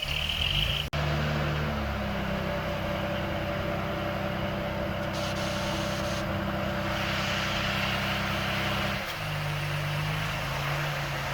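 Heavy earthmoving machine's diesel engine running steadily, rising in pitch about two seconds in and dropping back near the end as the load or throttle changes.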